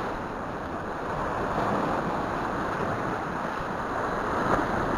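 Sea surf washing over a rocky shoreline: a steady rushing wash, swelling slightly about four and a half seconds in.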